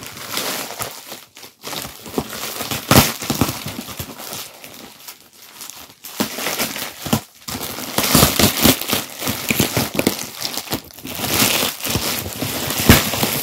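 A silver foil bubble-insulated cooler bag crinkling and crackling as it is opened and a husky pushes its nose into it. The crinkling is irregular, with louder, busier handling from about two thirds of the way in.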